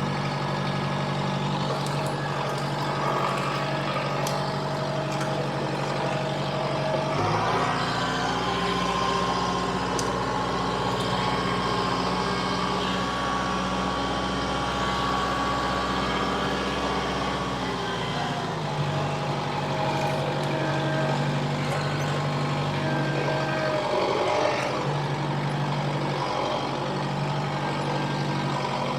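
Kubota M6060 tractor's four-cylinder diesel engine running steadily. About seven seconds in it revs up, and about eleven seconds later it drops back to its earlier speed.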